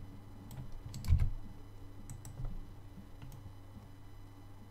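A few scattered computer keyboard and mouse clicks, with a louder low thump about a second in, over a faint steady low hum.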